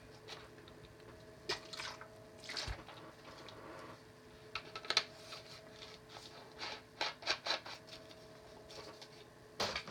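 Quiet room with a faint steady hum and scattered small clicks and handling noises, the loudest near the end.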